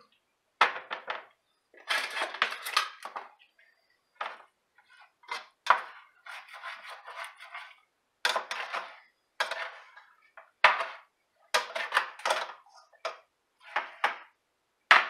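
A slotted cooking spoon scraping and clattering against a stainless steel pot in irregular strokes as ground turkey is stirred and broken up, with a few sharp knocks among them.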